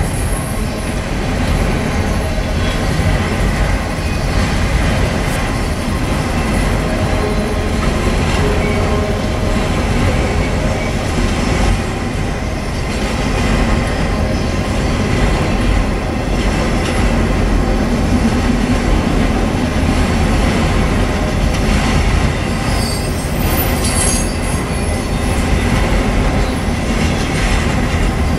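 Autorack freight cars rolling past steadily, a continuous rumble and clatter of steel wheels on the rails.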